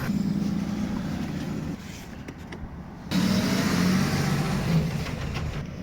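Ford Transit door's electric window motor running the glass through two strokes: a steady motor hum for about a second and a half, a short pause, then a second run of about two and a half seconds.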